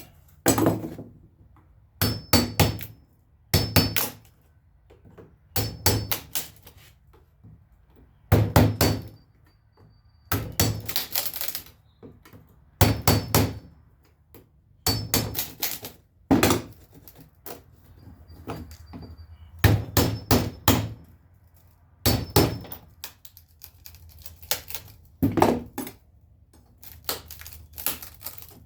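Hammer tapping in short groups of two to four sharp strikes, every second or two, some with a light metallic ring. This is typical of a pry tool being driven under wooden trim to work it loose from a door's glass panel.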